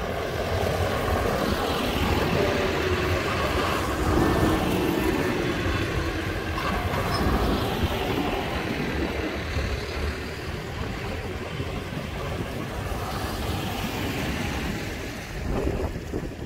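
Diesel tractor engines running as a line of tractors drives past one after another, loudest in the first half as the nearest tractor goes by, then easing off as they move away.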